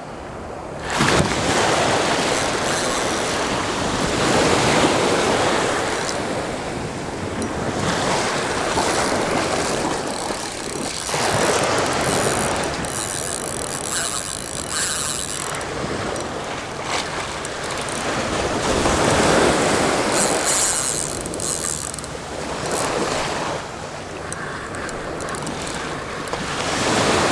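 Small surf waves breaking and washing up a sandy beach, the rush swelling and ebbing every few seconds.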